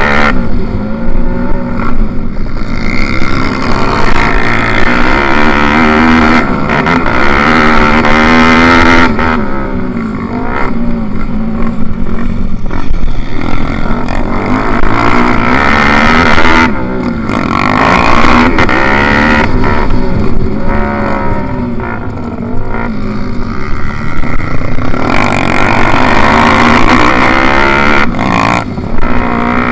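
Four-stroke single-cylinder pit bike engine heard on board while racing, its pitch rising and falling over and over as it revs out and shifts gears.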